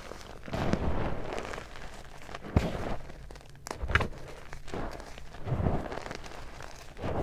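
Gloved hands crushing and crumbling hard blocks of glitter-covered gym chalk into powder: a series of crunches, with two sharper cracks near the middle.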